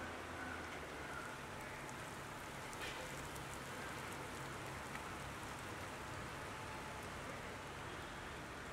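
Light rain falling on a wet paved street: a steady, even hiss with a few faint scattered drip ticks.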